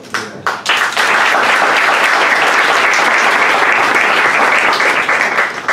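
Audience applauding: a few scattered claps at first, then a steady round of applause that stops sharply near the end.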